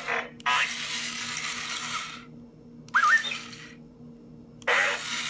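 R2-D2 remote-control toy playing its electronic sound effects: three bursts of static-like noise with short rising whistles, over the steady hum of its small drive motor.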